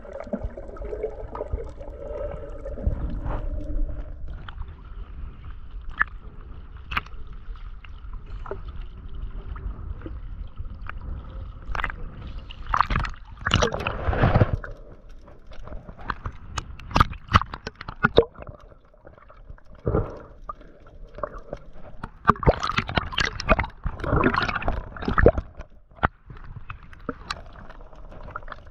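Water gurgling and sloshing around a diver at work, with many sharp clicks. Louder bursts of splashing and bubbling come about halfway through and again near the end.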